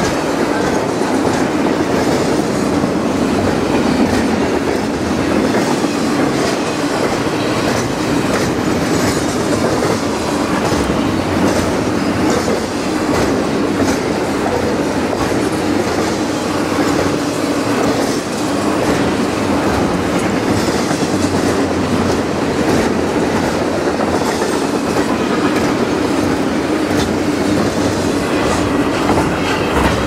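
Double-stack container train cars rolling past at speed: a steady noise of steel wheels on rail with a light clickety-clack.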